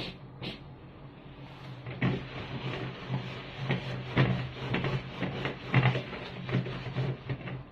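Cookware clattering: two knocks, then from about two seconds in a busy, irregular run of clinks and knocks that stops just before the end, over a steady low hum.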